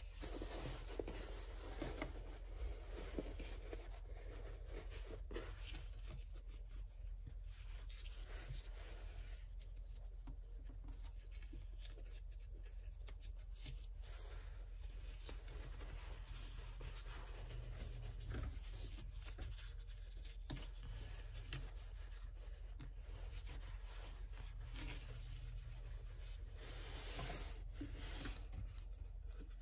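Heavy cloth rustling and rubbing as hands fold, pinch and smooth it flat on a table, with a faint steady low hum underneath.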